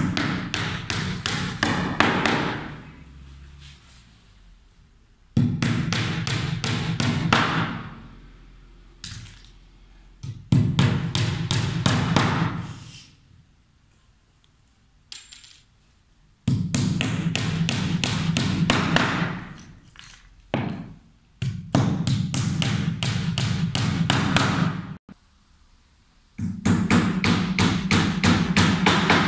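Power driver run in six bursts of two to three seconds each, with a rapid clatter over a motor hum, each burst dying away as the trigger is let go: screws being driven while a CNC router spoilboard is fitted.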